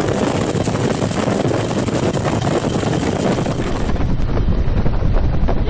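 UH-1 Huey helicopter in flight, rotor and engine noise mixed with heavy wind buffeting on the microphone from the open cabin door. About four seconds in the sound turns duller and heavier in the low end.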